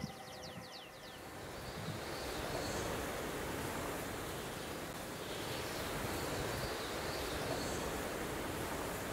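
Strong wind rushing over the microphone, rising about two seconds in and then holding steady. A quick run of high, falling chirps fades out about a second in, and faint high calls sound now and then.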